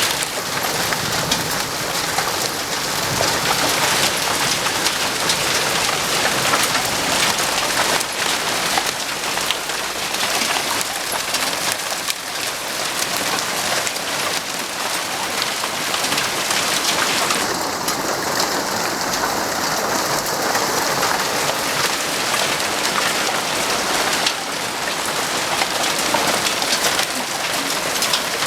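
Hailstorm: a dense, steady clatter of countless small hailstone impacts.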